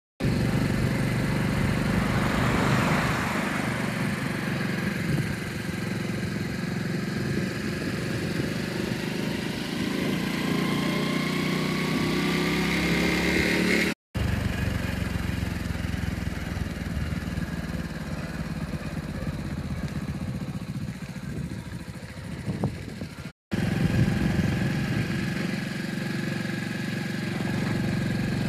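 A vehicle's engine running steadily, with tyre and wind noise, heard from the moving vehicle. The sound drops out briefly twice where the recording is cut.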